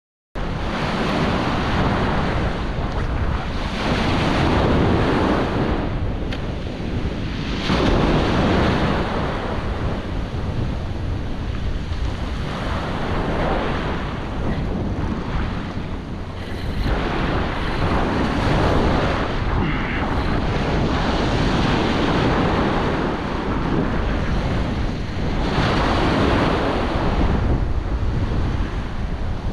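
Ocean surf breaking and washing around the shallows, swelling louder every few seconds, with strong wind buffeting the microphone.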